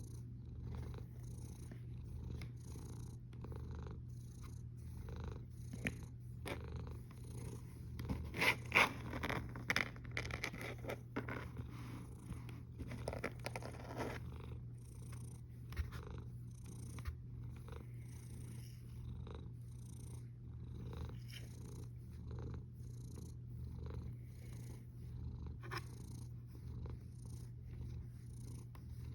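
Sleeping domestic cat snoring softly, a rhythmic purr-like rasp repeating with each breath. A cluster of louder, irregular clicks and rasps breaks in about eight seconds in and fades out by about fourteen seconds.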